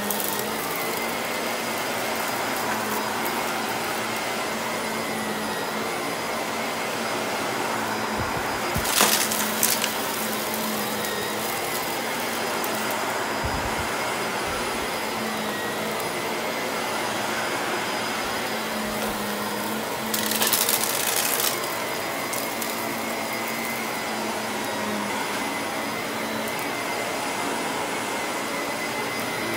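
Vacuum cleaner running steadily with an even hum. It gets two brief louder bursts of noise, about nine seconds in and again about twenty seconds in.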